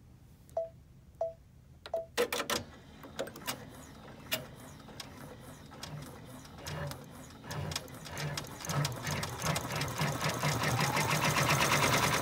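Multi-needle embroidery machine: three short beeps, then it starts stitching. The rapid needle strokes speed up and grow louder, with a rising whine near the end, as it runs the satin stitch over the appliqué.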